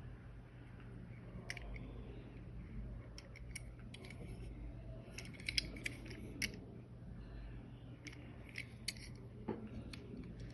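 Scissors snipping through the packaging of a diecast toy car in irregular short cuts and clicks, in several clusters.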